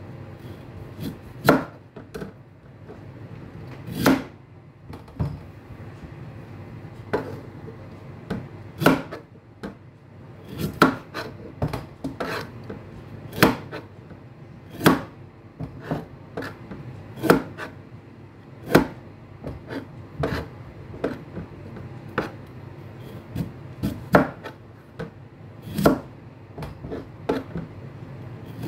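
Chef's knife cutting through beetroot and knocking on a cutting board: irregular sharp chops, about one every second or two.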